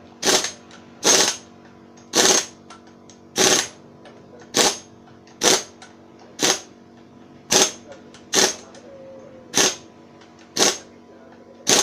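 Impact wrench driving in the flywheel bolts on a Perodua Kancil 850 engine, in about a dozen short bursts of hammering, roughly one a second.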